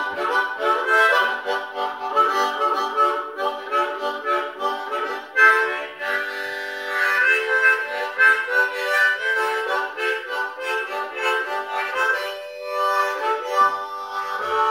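Harmonica played solo, cupped in the hands: rhythmic chords and runs of notes, with brief pauses about five and twelve seconds in.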